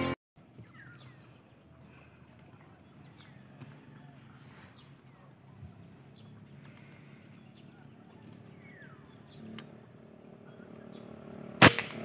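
Quiet outdoor background with faint, repeated high chirping, then near the end a single sharp report from a scoped air rifle being fired.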